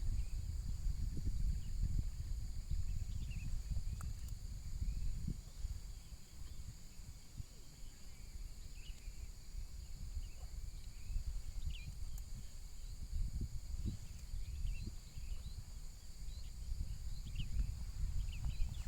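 Outdoor ambience: wind buffeting the microphone in uneven gusts, over a steady high drone of insects and scattered short chirps.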